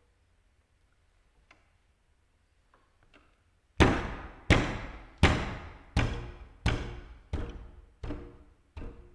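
A few faint scattered clicks, then from about four seconds in a run of loud, evenly spaced strikes on the tabletops, about one and a half a second. Each strike rings out, and the strikes grow gradually softer.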